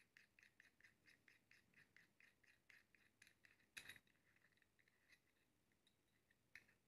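Faint metal ticking from the threads of a 100x microscope objective as its outer barrel is unscrewed by hand, about four or five small ticks a second. A sharper click about four seconds in and another near the end.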